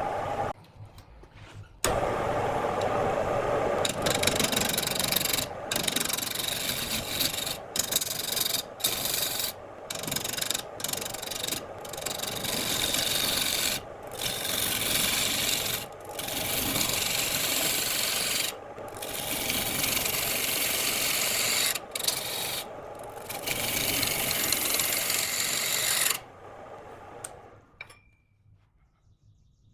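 A tool rasping and scraping against wood in long stretches with short breaks, stopping near the end.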